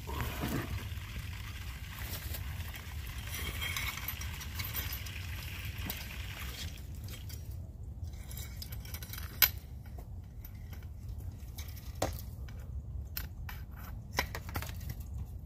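Rustling handling noise for the first several seconds, then scattered sharp clicks and clinks, the loudest about nine seconds in, from gloved hands working wires and fittings into an outdoor electrical box.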